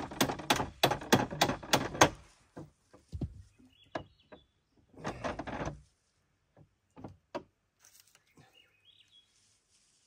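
A quick run of about nine sharp metal clicks and knocks over the first two seconds, then a few scattered knocks and a short scrape about five seconds in. This is the log-clamping gear on a portable band sawmill's bed being worked by hand, and it is awful stiff.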